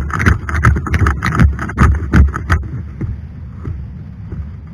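Running footfalls and rattling gear jolting a body-worn camera, about four thumps a second with wind rushing over the microphone. The running stops about two and a half seconds in, leaving a quieter steady rustle.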